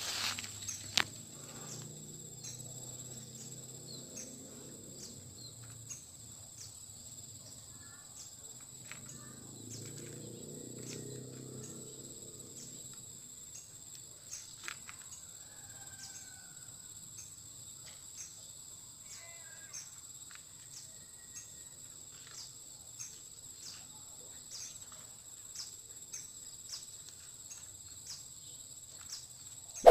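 Steady high-pitched insect chorus, pulsing at an even rhythm of about one to two beats a second, with a few faint bird chirps.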